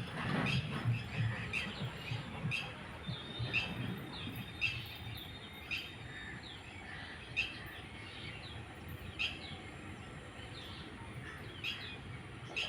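Wild birds chirping outdoors: short calls every second or so, over a low steady background hum of open air.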